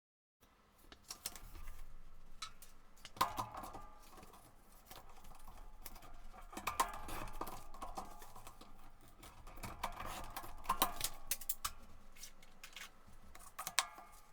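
Paper being handled and folded on a desk: rustling and crinkling, with a few sharp snaps and taps a few seconds apart.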